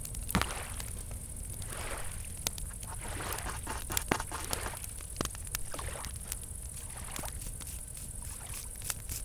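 Campfire crackling with scattered sharp pops, over gentle lake water lapping in soft swells and a steady high chirring of crickets.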